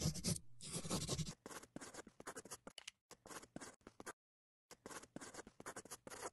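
Pen scratching on paper as handwriting is written out: a quick run of short scratchy strokes, with a half-second pause a little past the middle.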